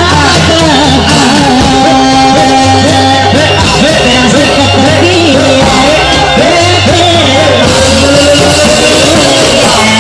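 Loud Indramayu Reog folk music with a wavering sung melody over a low bass note that is held for about a second and comes back roughly every two seconds, played through loudspeakers.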